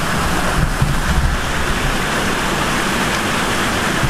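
Fountain water pouring down a tilted spiral chute and splashing into a stone pool: a steady rushing, splashing noise.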